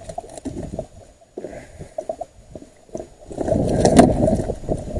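Handling noise on a boat deck as a caught catfish is held and set down: scattered light knocks and scuffs, then about three seconds in a second or so of loud low rumbling and thumping.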